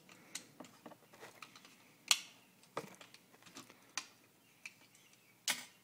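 Thin eyeglass screwdriver prying at the snap latches of a plastic disposable camera body: irregular small clicks and snaps of plastic and metal, the loudest about two seconds in and another near the end.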